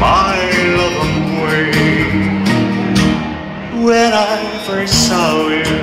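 Live music: a male singer with band accompaniment, singing a slow ballad.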